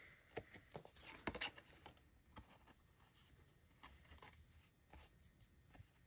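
Faint scratching and small taps of glue being applied to a die-cut cardstock tag, with light paper handling, in a very quiet room.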